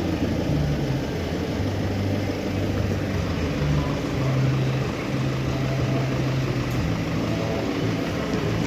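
Peugeot car engine idling, with a low hum that wavers unevenly, typical of the misfire that heavy carbon build-up is blamed for.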